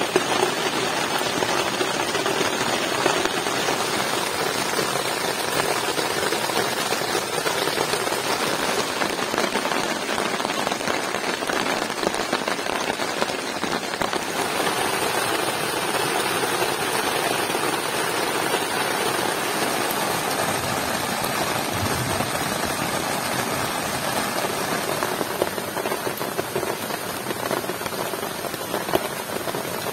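Heavy rain falling steadily, a dense and even patter of drops.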